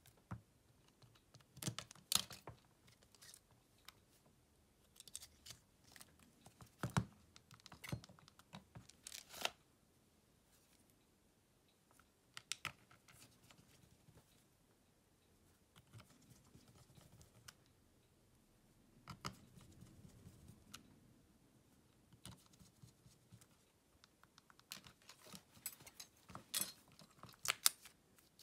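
Small clicks, taps and rustling from a smartphone and its parts being handled with small tools, coming in irregular clusters with quieter gaps between.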